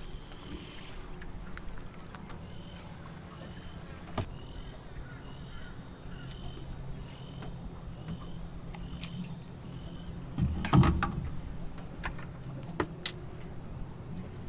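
Insects chirping: a short high chirp repeated a little under twice a second over a low steady hum, with a few sharp knocks and one louder thump about eleven seconds in.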